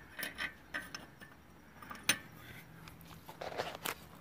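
Metal clinks and knocks as a welded steel exhaust flange is handled and test-fitted against a small engine's exhaust port: a few sharp knocks, the loudest about two seconds in, and a quick cluster near the end.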